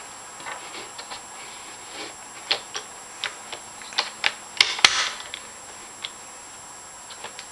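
Plastic clicks and snaps of a DIY puzzle cube's pieces being handled and pushed into place during assembly, coming irregularly, the loudest snaps about halfway through.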